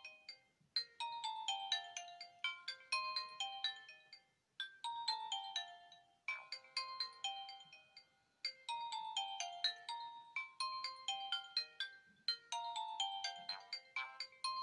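Nokia 1661 mobile phone ringtone playing: a quick melody of short, bright notes that loops about every four seconds, with a brief pause before each repeat.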